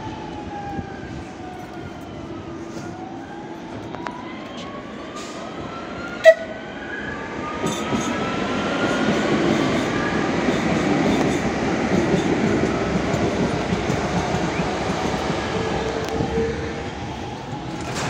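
Electric metro train running through the station: a whine from its motors falls, then rises steadily as the train gathers speed, and the rumble of the running train grows louder in the second half. A brief, sharp tone cuts in about six seconds in.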